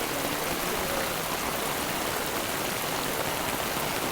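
Steady rushing noise with no clear pitch, spread evenly from low to high.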